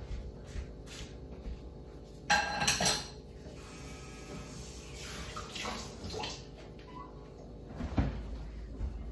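Refrigerator being opened and rummaged in: a short, loud rattling scrape about two seconds in, softer rustling and clinking after, and a single thump near the end.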